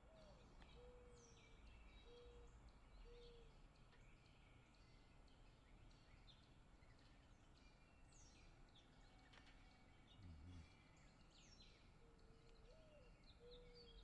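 Faint birdsong: several birds chirping, with short falling whistles. A low note repeats three times near the start and again near the end, and there is a soft low thump about ten seconds in.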